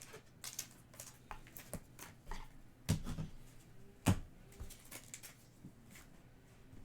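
Trading cards being handled and flipped through: irregular light clicks and rustles, with two louder taps about three and four seconds in.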